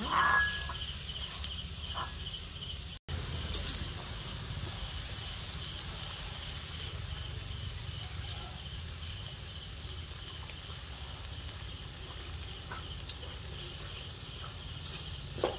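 Insects chirping in a steady, fast pulsing trill over a low steady hum. The sound cuts out for an instant about three seconds in.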